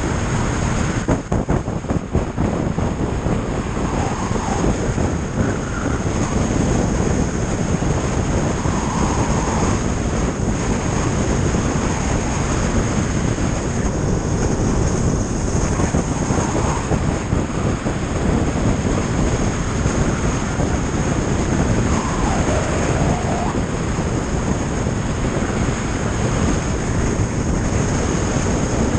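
Motorcycle riding at road speed: steady wind rush over a bike-mounted camera with the engine running underneath. About a second in there is a brief flutter of buffeting as an oncoming pickup truck passes.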